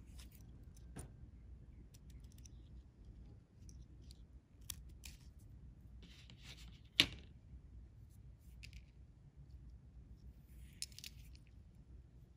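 Faint close handling sounds of braided fishing line rustling and sliding through fingers as a knot is wrapped and pulled tight around a metal snap swivel, with scattered small clicks. One sharp click about seven seconds in is the loudest.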